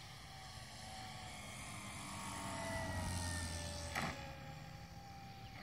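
Funtana 125 RC plane landing, its motor at low throttle. The motor note slides slowly lower and grows louder as the plane comes in close, with a sharp knock about four seconds in as it touches down on the runway, then it runs on quietly.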